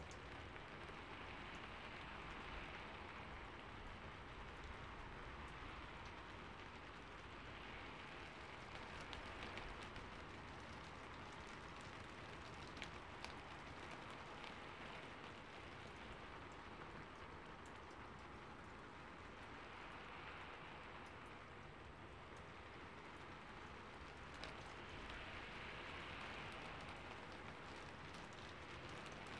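Faint steady hissing background noise that swells a little every few seconds, with a few faint clicks.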